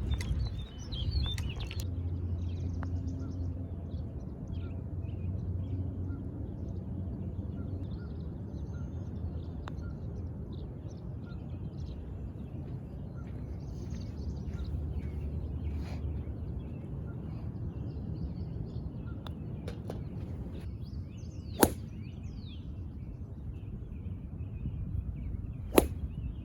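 Two sharp cracks of a golf club striking a ball, about four seconds apart near the end, over birdsong and a low steady outdoor rumble.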